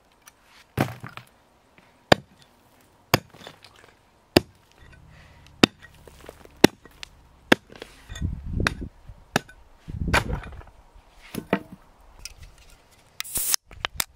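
Steel pickaxe striking stony ground and old channel concrete in a steady series of sharp blows, about one a second, breaking the concrete out by hand. Near the end, a short fizzing hiss as a drinks can is opened.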